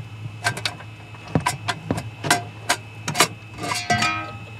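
Sheet-metal inverter housing being handled and shifted into place: a quick run of knocks and clicks, with a short metallic ring near the end, over a steady low hum.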